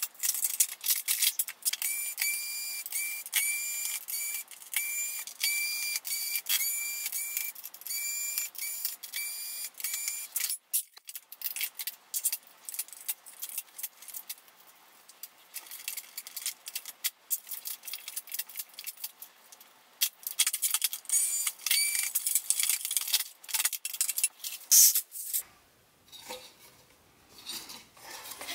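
Sped-up clatter of TV disassembly: rapid clicks, knocks and metallic jangling of tools, screws and plastic and metal parts. Short high whines repeat about every 0.7 s through the first several seconds and again about twenty seconds in, and the sound thins out in between.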